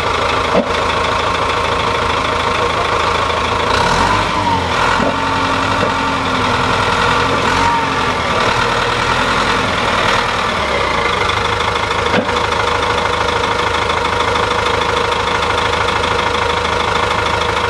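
Caterpillar D3B crawler dozer's four-cylinder diesel engine running steadily at idle. From about 4 to 10 seconds in, the note shifts and wavers as the engine takes load while the blade is worked and the machine moves, and two sharp clunks come, one right at the start and one about 12 seconds in.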